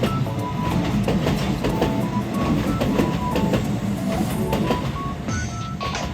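Kintetsu electric train passing with a steady rumble and wheels clicking over the rail joints, under background music.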